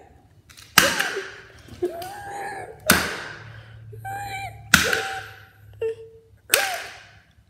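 Four sharp hits about two seconds apart, each with a brief fading ring, as toys are struck on a hard floor. Between the hits come short pitched vocal noises from a child.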